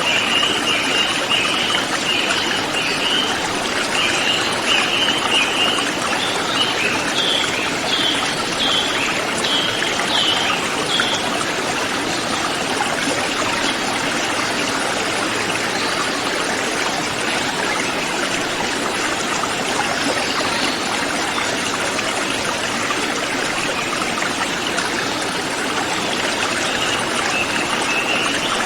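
Mountain river flowing in a steady rush of water. Over it, a bird gives quick runs of high chirps for the first ten seconds or so, then a few separate notes, and chirps briefly again near the end.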